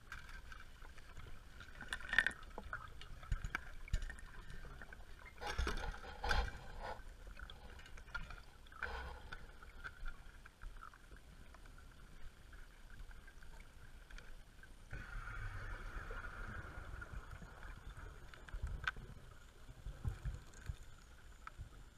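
Muffled underwater sound of scuba diving: a diver's regulator breathing, with several bursts of exhaled bubbles and scattered small knocks of gear.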